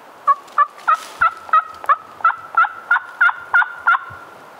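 A run of about a dozen loud turkey yelps, roughly three a second, ending about four seconds in.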